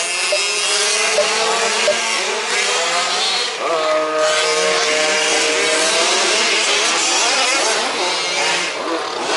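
Several 1/5th-scale off-road RC cars' small two-stroke petrol engines racing together, their revs rising and falling as they overlap.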